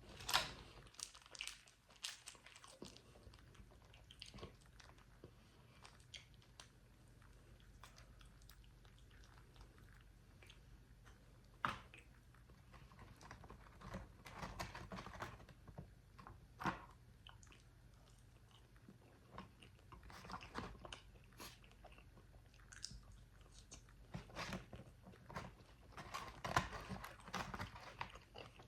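A person chewing and biting into crispy fried food, with sharp crunches now and then between stretches of quieter chewing.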